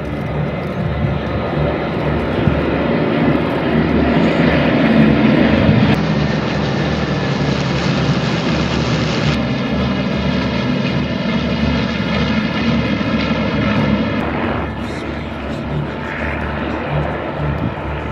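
Piston engines of a large formation of World War II propeller fighters flying past overhead: a dense drone that swells to its loudest about five seconds in. From about nine seconds in, a steadier engine tone with a clear pitch, fading near the end.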